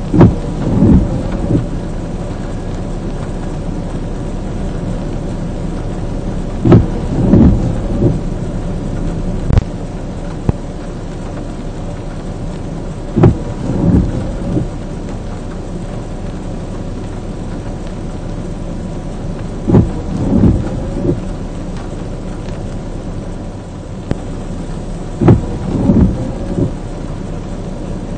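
Rain on a parked vehicle, a steady hiss, broken by a short cluster of low thumps about every six and a half seconds, five times over.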